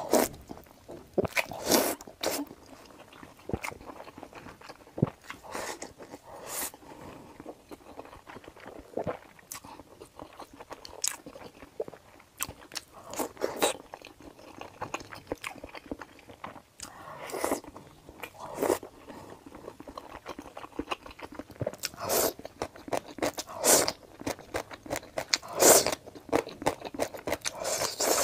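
Close-miked eating of noodles in spicy broth: irregular chewing and crunching, with several longer, louder noodle slurps spread through the stretch.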